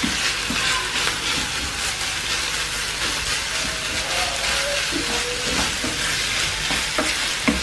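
Minced beef, onion and tomato paste sizzling steadily in a nonstick frying pan, with a wooden spoon stirring and scraping through the mince.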